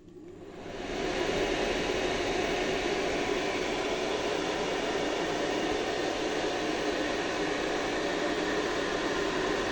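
HF-150 ventilation fan switched on, spinning up over about the first second to a steady rush of motor and air noise.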